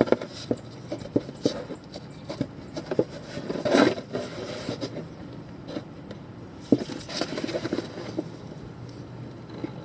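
Irregular clicks, taps and scrapes from handling a plastic fluid bottle and filler hose while refilling a transfer case, with a louder rustling burst about four seconds in and a sharp knock near seven seconds.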